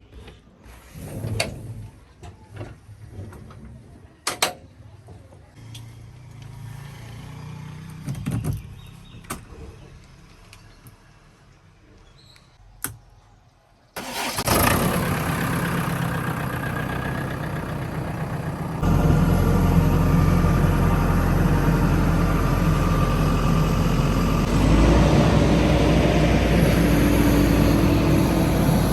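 A few scattered clicks and knocks, then about halfway through the JCB 3DX backhoe loader's diesel engine starts abruptly and runs steadily. It gets louder a few seconds later, with a short rise in pitch near the end.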